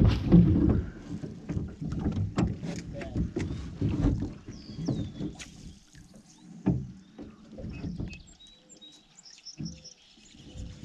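Small boat being paddled, with water sloshing and repeated knocks against the hull, easing off after about six seconds. Birds chirp in the background.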